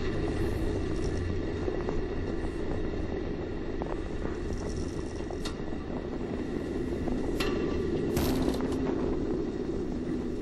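Steady rushing wind and rumble around a space shuttle solid rocket booster descending under its three main parachutes. A few sharp snaps come through, the strongest about eight seconds in.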